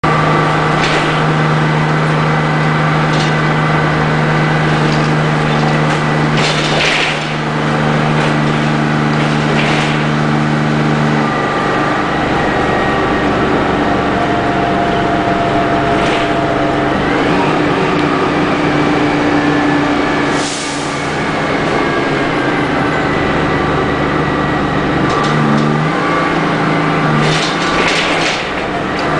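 Detroit Diesel 6V71N two-stroke V6 diesel of a Flyer D901 transit bus running under way with its Allison V730D three-speed automatic, heard from inside the passenger cabin. The engine note holds steady, then changes about eleven seconds in and again in the second half, with several short hisses along the way.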